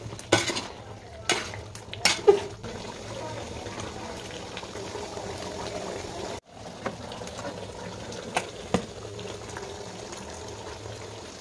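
Chicken curry bubbling at a simmer in a metal pot, a steady bubbling hiss. A ladle clinks and scrapes against the pot several times in the first few seconds and twice more later on.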